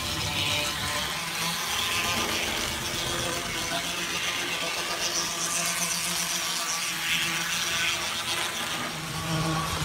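N scale Arnold 4-6-2 Pacific model steam locomotive running around the track: its small electric motor and gears whir steadily, swelling louder at times as it passes close.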